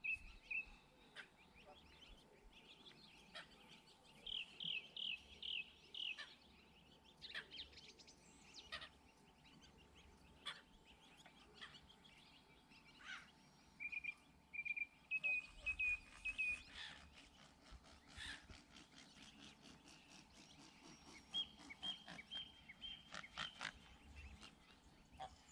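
Goslings peeping: faint short runs of high, repeated calls a few seconds apart, with scattered faint clicks between them.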